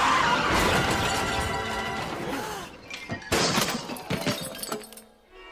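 Cartoon crash and clatter effects: a loud crash dies away over the first couple of seconds, then metal hand tools (a wrench, saw, hammer and screwdriver) clatter onto the floor in a few separate hits about three and four seconds in.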